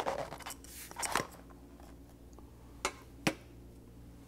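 Used cartridge oil filter element being pulled off its plastic filter housing cap by hand with a shop towel: handling and rubbing noise with a few sharp clicks, two of them about half a second apart about three seconds in.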